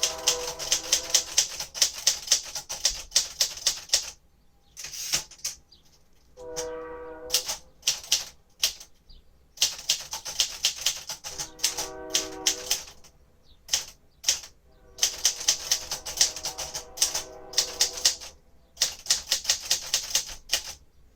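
1957 Royal Aristocrat manual typewriter being typed on: runs of rapid key strikes in bursts, broken by short pauses. A ringing tone, the margin bell, sounds three or four times between and during the runs.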